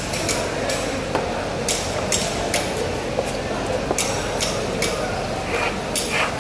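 Irregular sharp knocks of knives striking wooden chopping blocks, about two or three a second, over a steady background hubbub.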